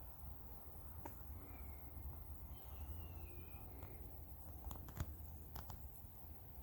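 Faint outdoor ambience: a bird gives two short descending whistled calls, and a few sharp clicks sound toward the end, over a steady low rumble.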